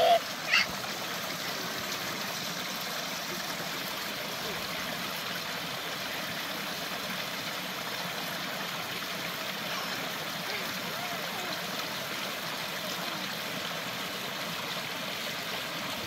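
Small woodland stream trickling and babbling over rocks, a steady rushing murmur of water. Two or three brief louder sounds in the first half second.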